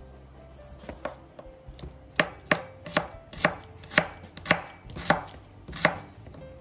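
Knife chopping food on a cutting board: a run of about eight sharp chops, roughly two a second, starting about two seconds in.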